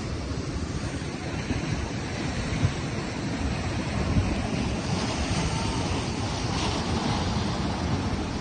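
Ocean surf washing and breaking against rocks, with wind buffeting the microphone.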